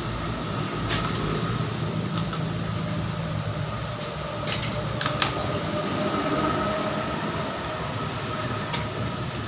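A machine running steadily with a thin high whine, and a few sharp clicks or knocks.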